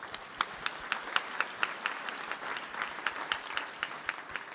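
Audience applauding, with a few nearby claps standing out at about four a second.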